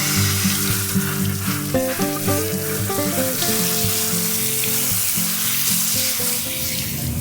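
Soft background music of held, keyboard-like notes that change every second or so, over a steady, fairly loud hiss like food frying. The hiss cuts off sharply at the end.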